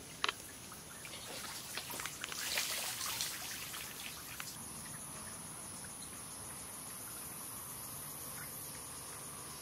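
Night insects calling as a steady, high-pitched drone that grows more even about halfway through. In the first three seconds there are scattered clicks and a short rustling burst.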